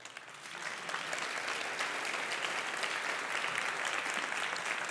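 Audience applause in a lecture hall, a dense clatter of many hands clapping that builds over about the first second and then holds steady.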